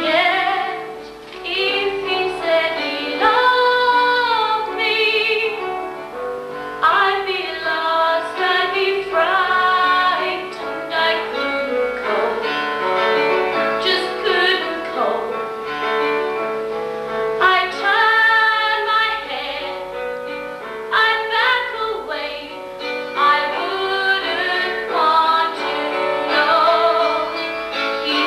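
A girl singing a solo musical-theatre song with instrumental accompaniment, her held notes wavering with vibrato.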